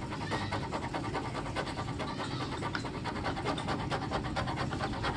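A flat, blunt metal blade scraping hardened mango sap off a car's painted body panel in rapid, evenly repeated short strokes.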